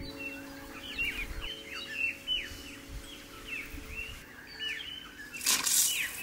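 Small birds chirping over and over, a quick falling chirp several times a second. Near the end a brief, loud hiss of water spraying from a garden sprinkler.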